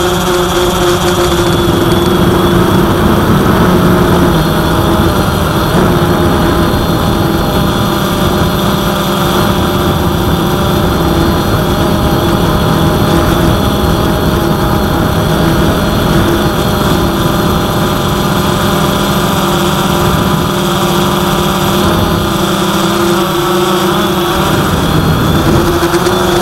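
Cheerson CX-22 quadcopter's motors and propellers whining steadily, their pitch drifting slightly, under heavy low wind rumble buffeting the microphone in strong gusty wind.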